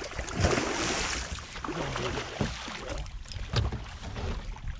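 Water splashing as a hooked pike is netted beside the boat, with the heaviest splashing about half a second in, lasting about a second.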